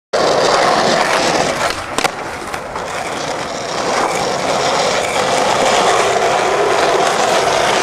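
Skateboard wheels rolling over rough asphalt: a steady rumbling roll, with a single sharp click about two seconds in.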